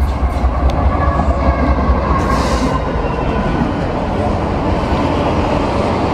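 Diesel-hauled freight train passing close by: the locomotive's deep engine rumble for the first three seconds or so, then the rush and clatter of the freight cars' wheels on the rails.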